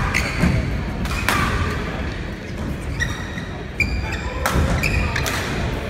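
Badminton rally: rackets strike the shuttlecock three times, about a second in and twice near the end, with shoes squeaking briefly on the court floor and footfalls thudding between shots.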